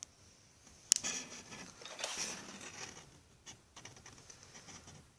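Handling noises: a sharp click about a second in, then rustling and scraping for a couple of seconds, and a few light taps near the end.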